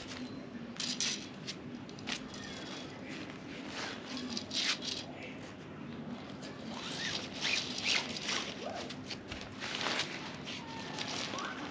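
Tent fabric and poles being handled during pitching: irregular rustling, with short clicks and scrapes.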